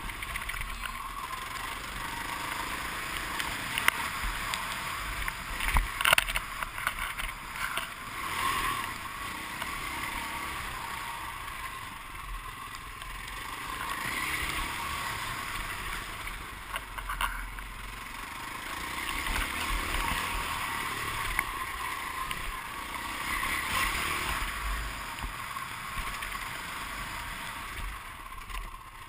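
Dirt bike engine heard close up from the bike itself while it is ridden over a motocross track, swelling and dropping as the throttle opens and closes, with wind noise on the microphone. A few sharp knocks come about four and six seconds in, from the bike hitting bumps.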